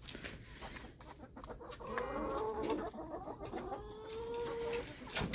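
Hens clucking and calling in short pitched notes, with one longer drawn-out call rising slightly in pitch a little before the end.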